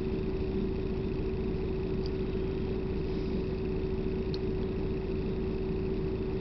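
Steady drone of a bus interior: low engine and road rumble with a constant hum tone, unchanging throughout.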